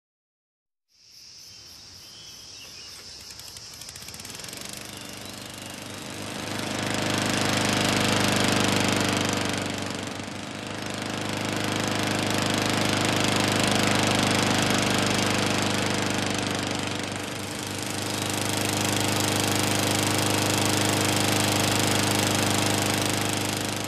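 Petrol lawnmower engine running steadily. It grows louder over the first several seconds, then swells and fades twice as it moves back and forth. Before it comes in there is a quieter outdoor background with a steady high buzz.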